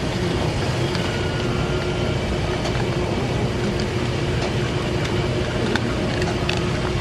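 Steady rumble and hum of a laundromat's running washers and dryers, with a constant low tone and a few faint clicks.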